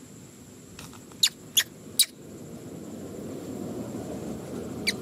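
Baby macaque giving short, high-pitched squeaks: three in quick succession about a second in and one more near the end. A low rustling noise builds up underneath from about halfway.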